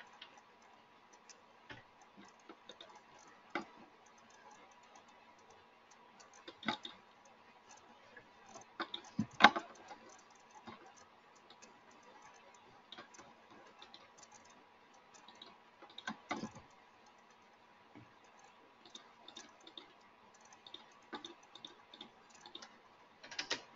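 Scattered computer mouse clicks and keyboard keystrokes, quiet and irregular, with a few louder clicks, over a faint steady hum.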